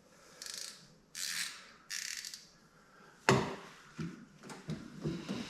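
Hand tools being worked down into an engine bay: three short rubbing scrapes, then a sharp metallic clink a little over three seconds in and several lighter knocks, as a crowfoot wrench on an extension is fitted onto the oil pressure switch.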